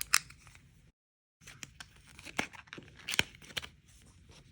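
A sealed mini photocard pack being opened: the seal tearing and the packaging crinkling in a string of irregular crackles and snaps, the sharpest at the very start. The sound drops out completely for about half a second, about a second in.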